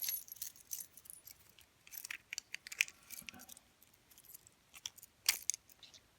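Small metallic clicks and rattles of a key being worked in a Winchester six-lever padlock, with a sharp click a little over five seconds in.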